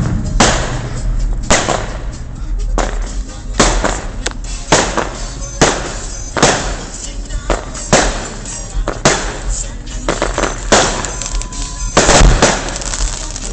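Consumer fireworks going off: about a dozen sharp bangs, roughly one a second, each followed by a brief echo.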